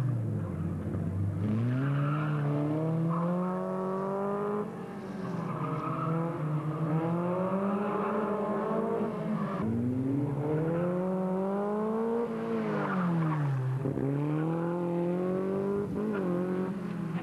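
A Formula Ford single-seater's engine revving hard. The revs climb and drop again and again as the car accelerates and brakes between the slalom gates.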